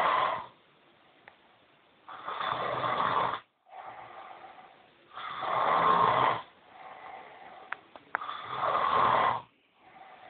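Snoring in a steady rhythm: a loud snore about every three seconds, with quieter breaths between them.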